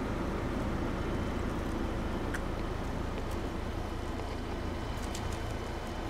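Steady low outdoor rumble, with a few faint sharp ticks over it.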